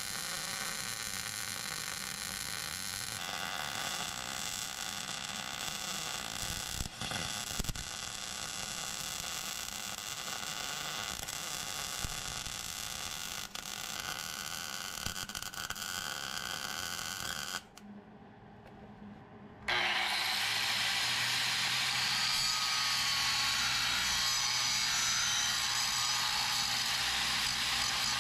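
A MIG welder crackles and buzzes steadily as it lays a bead on the steel trailer tongue. After a short, quieter break about two-thirds of the way in, an angle grinder comes in louder and grinds steadily on the steel.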